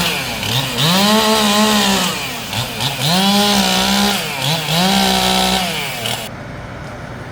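Chainsaw revving up and down in about four long bursts, each climbing to a held high pitch and then dropping, as it cuts through a tree branch. It cuts off suddenly about six seconds in.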